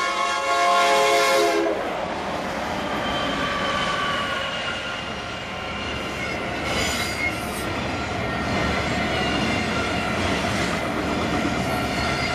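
A freight train's multi-note air horn sounds and cuts off about two seconds in. The steady rolling clatter of the intermodal freight train's wheels on the rails follows, with a faint high wheel squeal.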